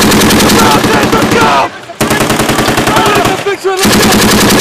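Turret-mounted belt-fed machine gun firing long bursts of automatic fire: three sustained bursts, broken by two short pauses.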